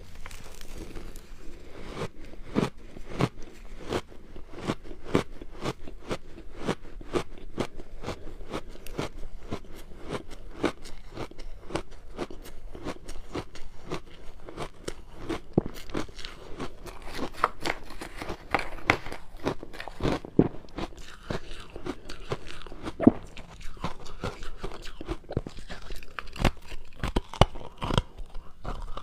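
Someone biting and chewing ice close to the microphone: a dense run of sharp, irregular crunches as the ice cracks between the teeth.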